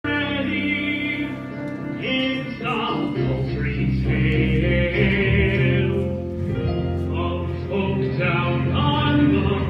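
A musical-theatre song playing from a recording: its opening bars, with held low notes under a moving melody.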